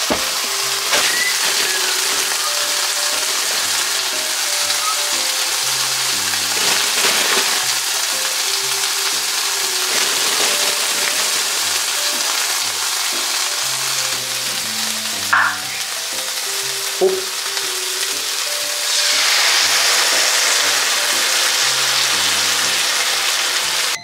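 Chicken pieces frying in oil in a frying pan, sizzling steadily and louder for the last few seconds. Soft background music plays underneath, with a couple of brief knocks partway through.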